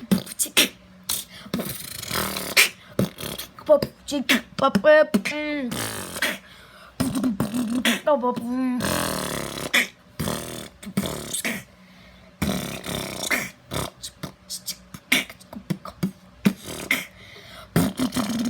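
A person beatboxing: a fast run of mouth-made percussive clicks and hits, with warbling sung tones twice, around four to six seconds in and again around eight seconds in.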